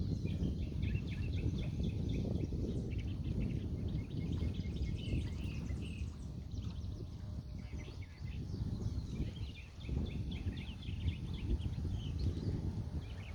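Wind buffeting the microphone as a gusting low rumble, with small birds chirping in quick runs of short notes, twice clustered: in the first few seconds and again about two-thirds of the way through.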